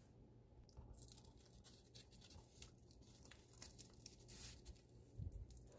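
Near silence, with faint rustles and crinkles of dried laver sheets being folded by hand around kimbap fillings, a little louder about five seconds in.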